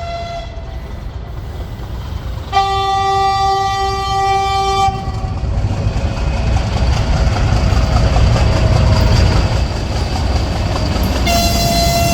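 TGM6 diesel-hydraulic shunting locomotive sounding its air signals while hauling a freight train: one horn blast about two and a half seconds in, lasting about two seconds, then the steady rumble of the engine and rolling wagons growing louder, and a second, higher signal starting near the end.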